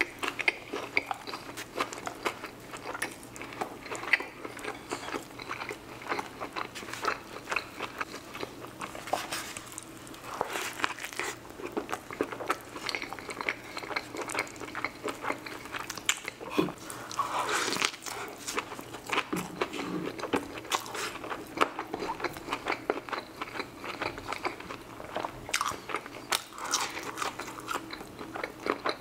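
Close-miked biting and chewing of crispy fried chicken sandwich: a continuous run of wet crunches and mouth clicks.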